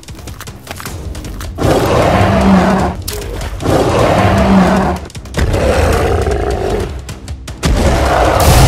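Cartoon monster roar sound effects: four long roars in a row, each about a second and a half, the first about one and a half seconds in, over background music.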